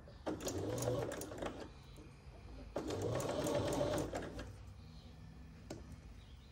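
Computerized sewing machine stitching in two short runs with a brief pause between them, as pieced quilt blocks are fed under the needle. A single click follows near the end.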